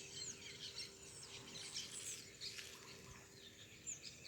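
Faint chorus of small birds chirping, many short quick calls overlapping, over a faint steady hum that fades out near the end.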